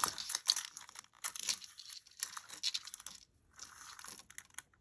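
Handling noise from a long chain necklace with charms being stretched out and measured: short, irregular rustling and crinkling bursts with small clicks, stopping for a moment partway through.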